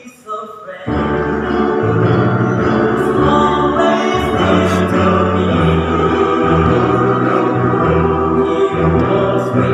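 Men's choir singing in parts. After a brief hush at the start, the full choir comes in loudly about a second in and holds long chords with deep bass notes underneath.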